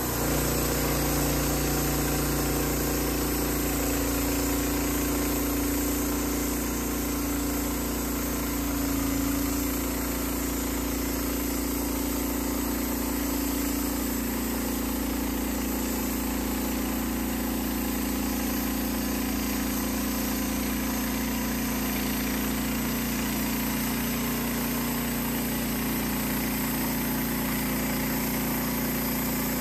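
Norwood LM30 portable bandsaw mill running steadily, its gasoline engine droning under load while the band blade saws lengthwise through a red oak log.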